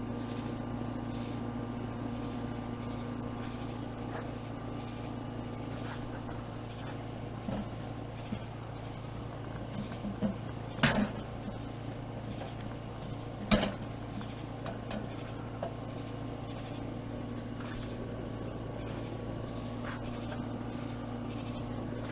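Steady outdoor insect chirring with a low hum beneath it. A few knocks and clicks from handling at the grill, the two sharpest about eleven and thirteen and a half seconds in.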